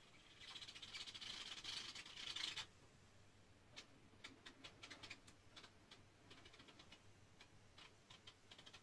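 Hot-wire cutter melting through a styrofoam box wall: a faint hiss for the first couple of seconds, then scattered small crackling ticks as the wire moves through the foam.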